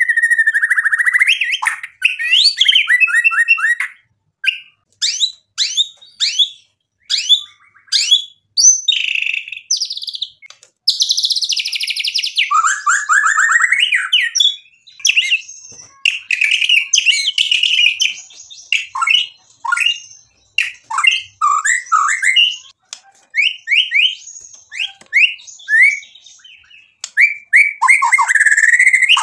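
Male white-rumped shama (murai batu) singing hard: a fast, varied run of loud whistles, rapid repeated notes and sliding phrases, delivered in bursts with short pauses between them.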